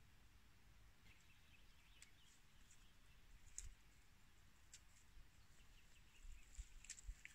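Near silence with a few faint, scattered clicks.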